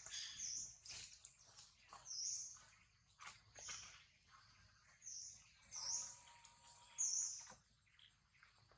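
Short, high-pitched chirping calls repeating about once a second, with faint ticks in between.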